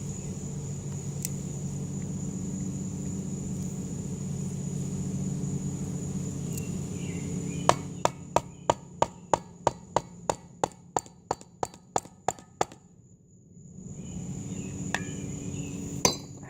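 A hammer striking the casing of a 6-volt battery pack in a quick even run of about sixteen blows, some three a second, starting about halfway through, to break it open. Beneath it a steady high insect trill and a low hum carry on, with one more strike near the end.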